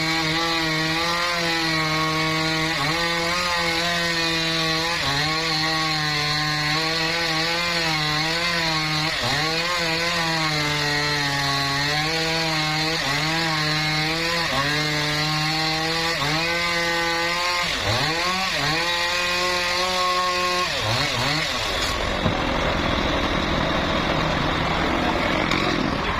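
Sawmill saw running and cutting wood, its steady hum dipping in pitch every second or two as the blade takes the load. A little over three-quarters of the way through, the hum sinks in pitch and dies away, leaving a broad rushing noise.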